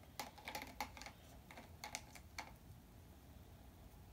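Markers clicking against each other and the cup as a hand rummages through them and pulls some out: a quick run of light clicks that stops about two and a half seconds in.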